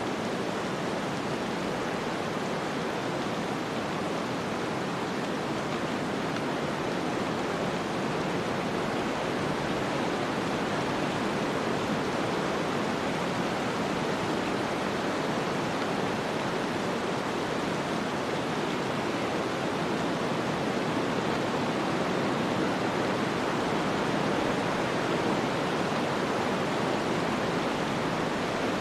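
Snowstorm ambience: a steady, even rush of wind-blown snow with no distinct gusts or clicks.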